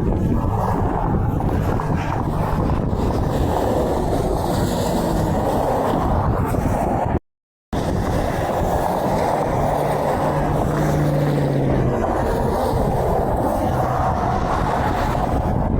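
Interstate highway traffic with semi trucks passing: a steady rumble and road noise, with wind buffeting the microphone. A low drone falls slightly in pitch about two-thirds of the way through. The sound cuts out completely for about half a second midway.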